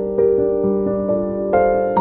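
Background music: a soft piano melody of gentle, held notes.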